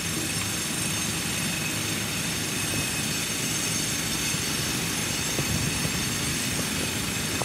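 Steady engine rumble and mechanical noise of a concrete boom pump truck working while concrete is poured for the bridge deck slab.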